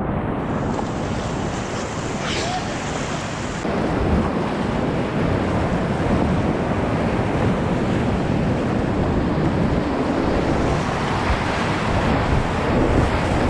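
Whitewater rapids rushing: a loud, steady wash of churning water heard close from a kayak, with buffeting on the camera microphone. It grows somewhat louder about four seconds in.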